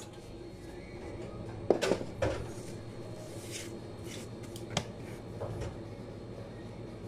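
Kitchen handling noises over a steady low hum: a pair of knocks about two seconds in as a serving platter is set down, then a single sharp click and softer handling sounds later on.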